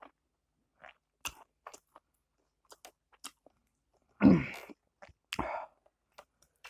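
Close-up eating sounds: faint scattered mouth clicks and chewing. Then a sudden loud burst from the eater about four seconds in, and a shorter one a second later.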